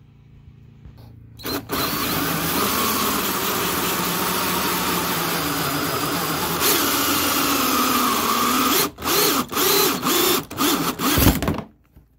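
Cordless drill turning a 2-inch hole saw through the ATV's plastic body panel. It cuts steadily from about a second and a half in, then runs in short stop-start bursts near the end.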